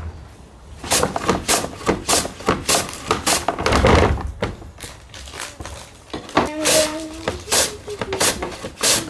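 Irregular clicks, knocks and rustles of hands working with cabbages during kimchi-making, with a louder dull thump about four seconds in.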